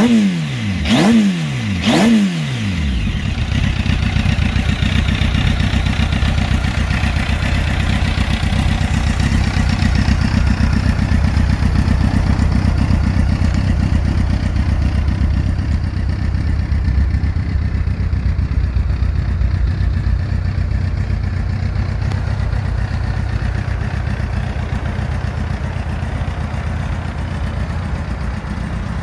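2004 Kawasaki ZX-10R's inline-four engine through a road-legal aftermarket Beet Nassert muffler. Quick throttle blips about a second apart in the first two seconds or so, then it settles into a steady idle.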